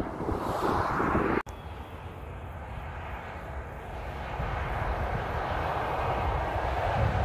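Heavy articulated lorry with a box semi-trailer driving along a motorway, a steady roar of engine and tyre noise that slowly swells as it approaches. About a second and a half in, the sound cuts out for an instant and resumes.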